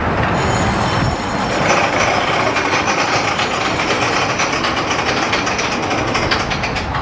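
Zamperla family roller coaster train clattering along its steel track as it climbs the lift hill, a fast, steady run of clicks and rattles.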